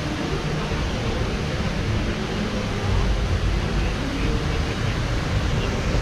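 Steady outdoor rushing noise, heavy in the low end, with faint voices of people.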